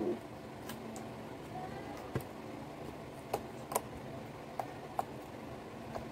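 Scattered light clicks and taps, about seven over a few seconds, from handling the slime and its mixing bowl.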